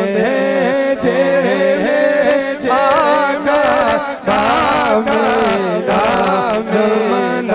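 Male voices singing a naat (Islamic devotional song) through a PA, in long wavering, ornamented phrases over a steady low drone.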